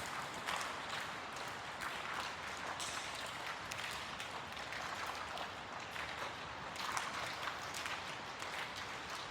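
Rainwater pattering and dripping from a leaking gymnasium roof: many small, irregular drops landing over a faint steady hiss.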